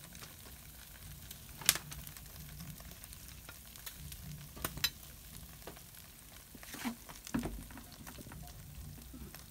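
Pork belly skewers sizzling on the wire rack of an electric grill above its glowing coil, a steady faint hiss broken by a few sharp clicks and pops.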